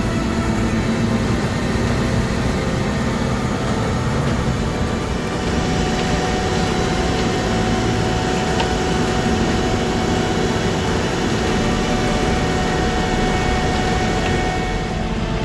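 Steady engine noise, a continuous rumble with a faint constant hum over it and no distinct events.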